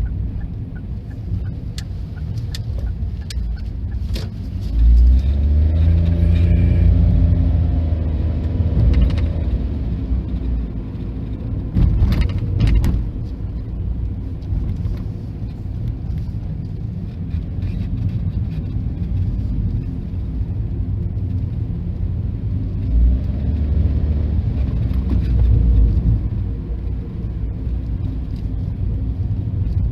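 Engines of passing vehicles rumbling, swelling and fading twice, about five and about twenty-three seconds in, with a few sharp knocks about twelve seconds in.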